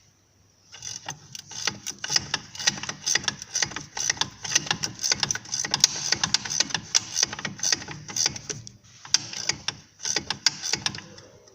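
Ratchet wrench clicking rapidly as it is worked on a suspension bolt, in a long run of fast clicks, a brief pause about nine seconds in, then another short run.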